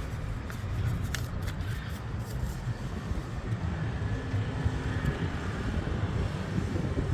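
Outdoor city street ambience: a steady low rumble of road traffic, with a few light clicks in the first couple of seconds.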